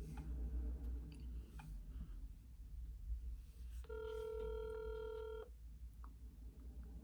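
Phone ringing tone heard through a phone's speaker while an outgoing call waits to be answered: one steady tone about a second and a half long, starting about four seconds in, over a low hum.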